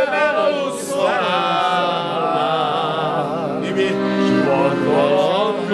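Several men singing a song together over an accordion's held chords.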